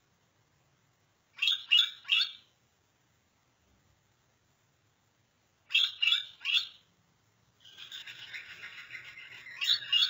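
Gouldian finches calling: two quick runs of three short chirps, then, from about three-quarters of the way in, a continuous quieter warbling, the male's courtship song as he dances.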